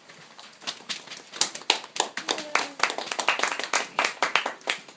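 A small group clapping, with uneven, separate hand claps that quicken into a brisk patter and stop near the end.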